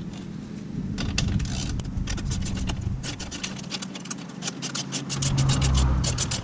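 Honda Grom's drive chain ticking and rubbing over the rear sprocket as the rear wheel is turned, the ticks coming faster and more evenly toward the end. A steady low hum runs underneath and swells near the end.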